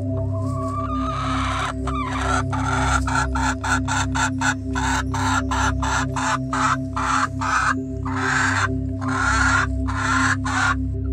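Chickens cackling over steady background music. A drawn-out rising call comes first, then a fast run of short harsh clucks at about four a second, and near the end three longer squawks.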